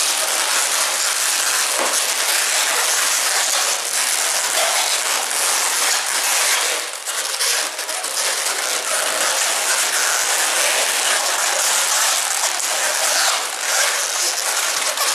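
Latex modelling balloons (260 and 160 size) squeaking and creaking continuously as they are twisted, rubbed and pushed into one another by hand, a dense crackly rubbing with no letup.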